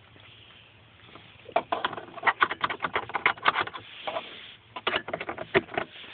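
Handling noise: a rapid, irregular run of clicks and rattles from small objects being moved about as the phone is handled, starting about a second and a half in.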